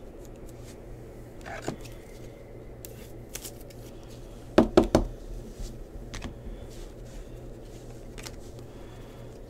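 Hands handling a stack of trading cards: light clicks and slides of card stock, with a quick run of three or four sharp taps about halfway through.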